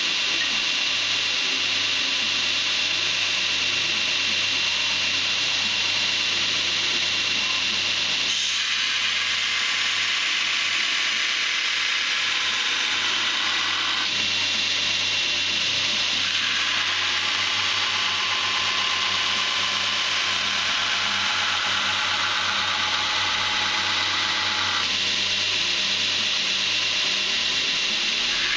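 Belt grinder running with its abrasive belt grinding D2 tool steel, a continuous harsh grinding over the motor's steady hum. The grinding changes in strength and pitch several times as the steel is pressed to the belt and moved.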